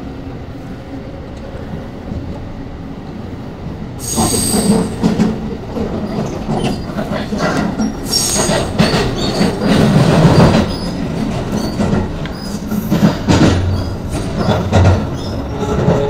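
Running noise of a 681-series electric express train heard from inside the carriage as it pulls out of the station. A steady low rumble gets louder about four seconds in, with rattling from the wheels over the track and two short high-pitched squeals from the wheels.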